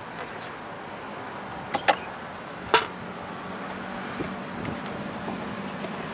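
Sharp plastic clicks from an RC speedboat's hatch and hull being handled as the hatch latches are turned and the cover comes off: two quick clicks just under two seconds in, then a third about a second later.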